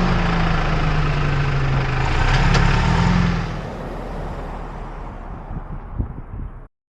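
Toyota Tacoma's turbocharged four-cylinder engine running with a steady hum and hiss. The sound falls away about three seconds in, and a single sharp click comes near the end before it cuts off suddenly.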